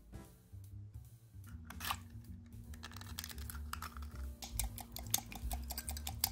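An egg cracked against the rim of a small metal bowl at the start. From about four seconds in, a wire whisk beats eggs in a glass measuring jug: fast, rhythmic clinks of the whisk against the glass.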